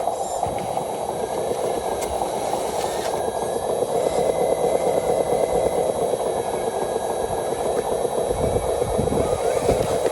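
RC truck's small electric motor and gearbox running steadily, with a faint whine that rises and falls in pitch a few times.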